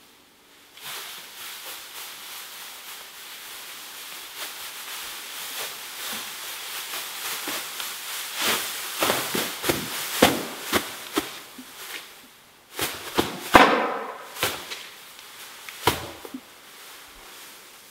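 Clear plastic sheeting rustling and crinkling as it is pushed and handled. It starts about a second in, and in the second half it breaks into many sharp crackles and snaps.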